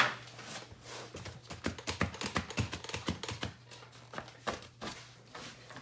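Small irregular clicks and taps, several a second, from hands working at the lid of a glitter container that won't open.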